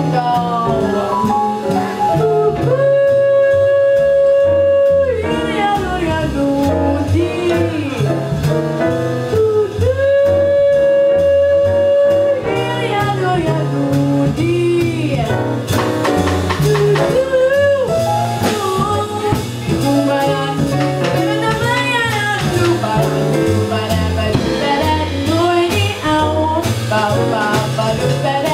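Live jazz: a woman sings into a microphone over a plucked upright double bass. Early on she holds two long notes of about two seconds each, then sings quicker lines that move up and down.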